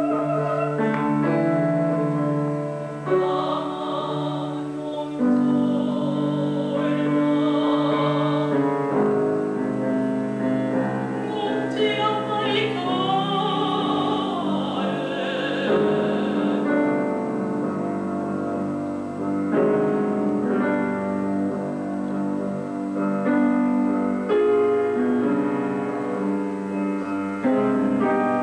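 Women's operatic voices singing with wide vibrato over piano accompaniment. The voices come in phrases, with the piano carrying on alone between them.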